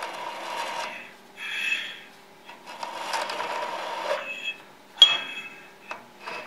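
Scriber of a dial height gauge scratching a layout line into a steel block as the block is slid across a granite surface plate, in about three scratchy strokes. A sharp knock about five seconds in is the loudest sound.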